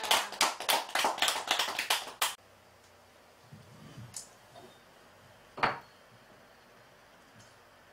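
A group of listeners applauding, which stops abruptly a little over two seconds in. Near the middle comes a single sharp clink, a small teacup knocking on the wooden lectern as it is picked up.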